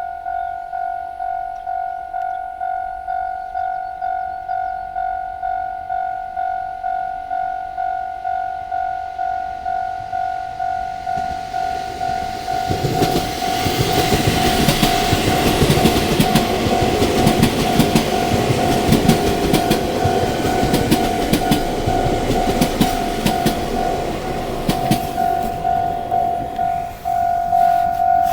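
Japanese level crossing warning bell ringing in an even repeating rhythm. About twelve seconds in, a train passes over the crossing, its wheels clattering over the rails for roughly twelve seconds while the bell keeps ringing.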